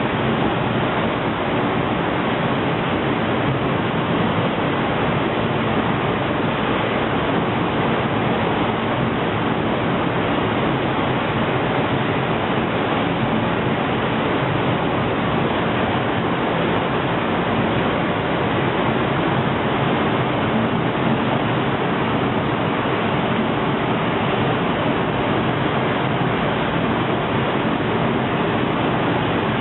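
Steady rush of air in an industrial paint spray booth: the booth's air extraction and the robot's spray gun hissing, with a faint low hum beneath.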